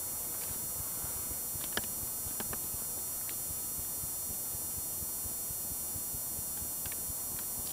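Footsteps and small sharp clicks on a hard floor over a steady hiss and low rumble, the sharpest click about two seconds in.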